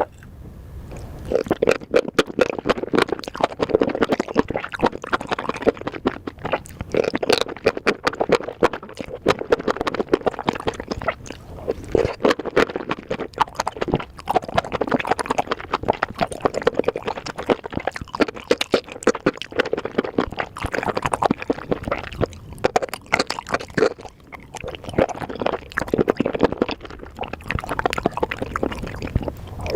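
Close-miked eating sounds: wet chewing and rapid mouth smacks and clicks of someone eating a spicy mushroom dish, going on without pause.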